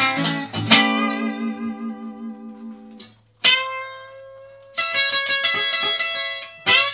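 Guitar playing with no singing. A chord is struck and rings out, fading over a couple of seconds. After a short break come a sharp note and a run of picked notes, then another struck chord near the end.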